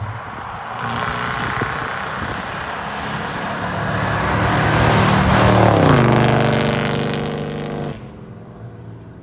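1979 Ford F-150's 460 V8 engine, with its throaty exhaust, running under load over road and wind noise. Its pitch climbs, drops about six seconds in, and the sound cuts off abruptly about two seconds later.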